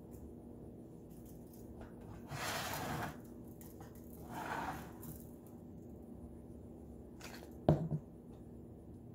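Seasoning being shaken and rubbed onto a raw turkey in a foil roasting pan: two scratchy rustling bursts of about a second each. A single sharp knock, the loudest sound, follows near the end.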